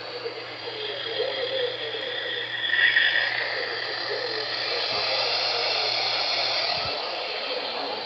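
Weather radio receiver playing a weak, noisy NOAA Weather Radio signal: steady static hiss with faint wavering sound buried in it. About three seconds in there is a brief louder burst.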